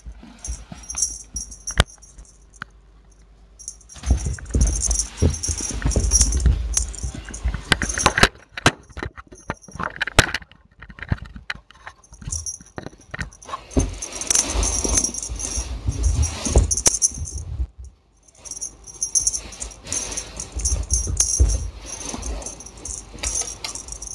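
Repeated bouts of light metallic jingling, with rustling and sharp clicks and knocks between them.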